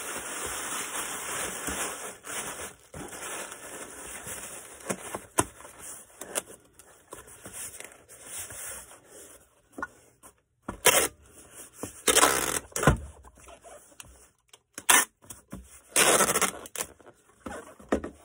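Parcel packing: packing material rustling, then three short, loud tearing strips a few seconds apart.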